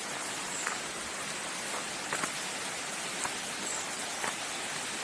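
Steady rushing of a hillside stream of water flowing down from the falls, with a few faint ticks over it.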